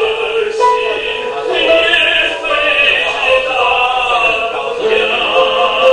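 A male baritone singing in full operatic voice, in Chinese, holding long notes with a wavering vibrato.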